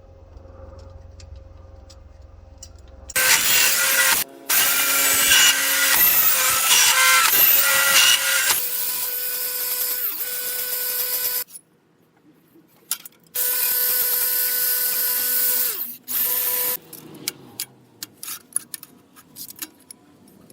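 A power tool cutting 1-inch metal tubing to length: two loud cuts over a steady motor whine, the first about eight seconds long, the second about three and a half, its pitch dropping as it ends. Light clicks and handling of metal follow.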